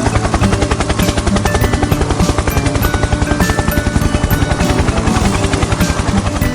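Background music with a fast, pulsing beat and short melodic notes.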